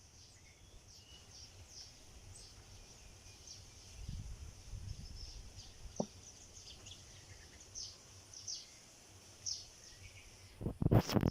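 Many small nest-building birds give short, high chirps over and over. A single sharp click comes about six seconds in, and a burst of loud rustling knocks comes near the end.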